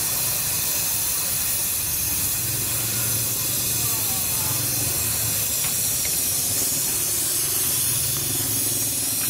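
Brazing torch flame hissing steadily as it heats a copper tube's silver-brazed joint on a refrigerator compressor until it glows red and the silver braze melts, so the tube can be pulled off.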